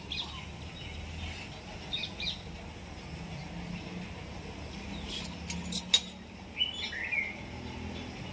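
Birds chirping in short scattered calls, with a quick run of sharp clicks about five to six seconds in.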